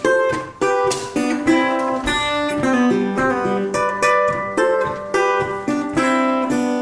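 1930 National Triolian resonator guitar played as a solo instrumental passage: a steady run of picked notes and strummed chords, about two attacks a second, each ringing on into the next.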